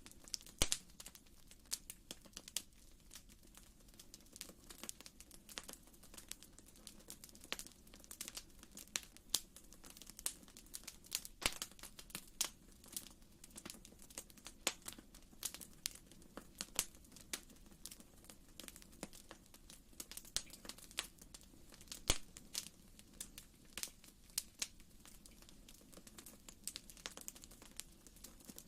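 Wood fire burning in a fireplace, with irregular crackles and snaps coming several times a second over a faint steady low hiss.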